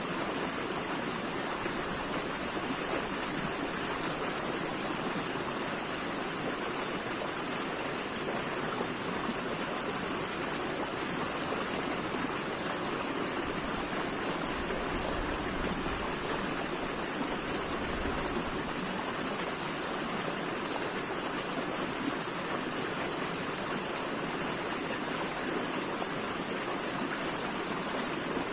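Water flowing steadily, a continuous rushing and babbling like a stream, with an even hiss and no breaks or changes.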